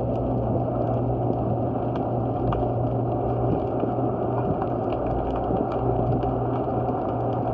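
Underwater noise below a wharf: a steady low hum over dense rumbling noise, with faint scattered clicks throughout.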